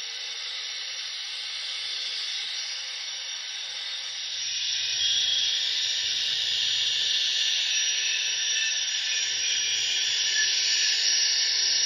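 A model Union Pacific 'Big Blow' gas turbine locomotive's sound system playing a steady jet-like rushing hiss with a faint whine in it, growing louder about five seconds in.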